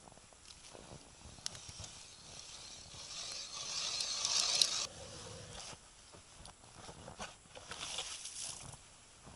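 Faint, distant crunching and hissing of snow and ice: footsteps in deep snow, then an ice auger being set down and starting to bore into the river ice. The hiss swells to its loudest about four to five seconds in and cuts off suddenly.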